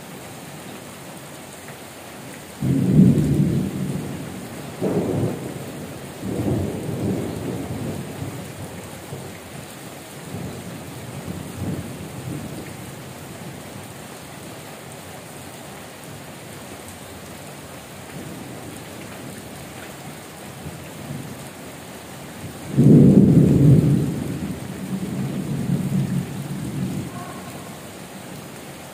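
Heavy rain falling steadily, with two peals of thunder. The first cracks a few seconds in, cracks again and rumbles away over several seconds; the second breaks out about three-quarters of the way through and rolls off over a few seconds.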